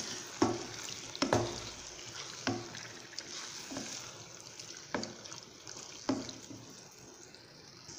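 Chicken pieces in masala gravy sizzling in a non-stick pan while a spatula stirs them, knocking against the pan about six times, a little over a second apart. The sizzle gradually fades.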